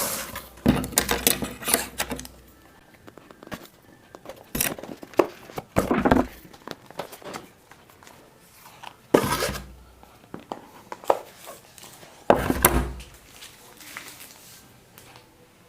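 Smartphone retail box being opened and its contents handled by hand: irregular knocks, scrapes and rustles of cardboard and plastic packaging.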